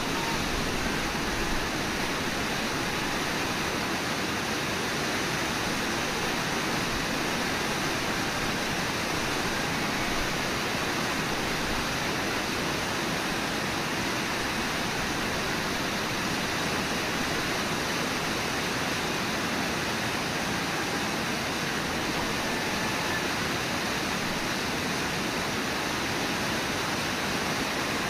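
Steady rush of the Brooks River's fast-flowing water and rapids.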